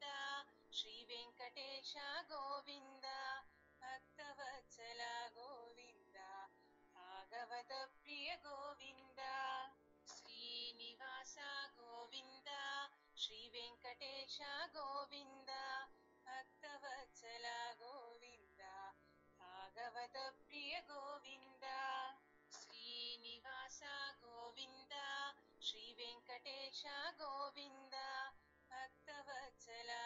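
Background devotional music: singing in repeating phrases over a steady low drone.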